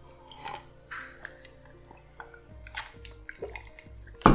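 Drinking ice water from a glass mug, with ice cubes clicking against the glass, over faint background music; a sharp knock near the end.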